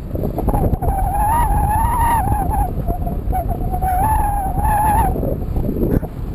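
Wind rushing over the microphone of a handlebar camera on a moving bicycle, with two long, high, wavering whines, each over a second long, near the start and about the middle.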